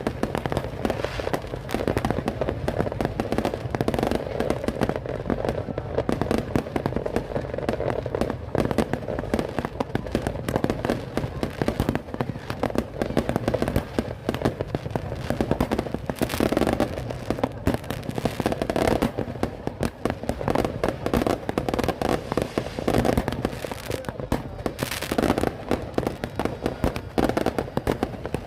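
Fireworks going off in a dense, continuous barrage of bangs and crackles, many each second.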